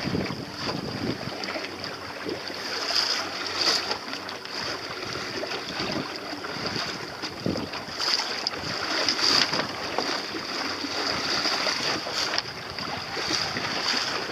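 Wind buffeting the microphone over water lapping and splashing against a sailboat's hull as it sails through a light chop, the noise swelling and easing in uneven gusts.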